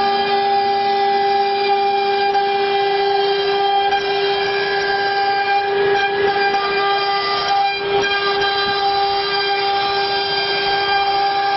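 An FM 1224 CNC woodworking router running, its spindle giving a loud, steady whine over a haze of machine noise. A lower tone drops out about three seconds in.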